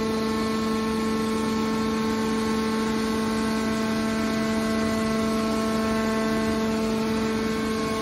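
Hydraulic power unit of a scrap metal baler (electric motor and pump) whining at one steady pitch while the lid cylinder drives the baler's top lid closed.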